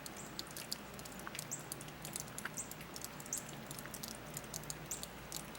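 Hard, granular snow falling steadily, its grains making many small irregular ticks over a soft hiss.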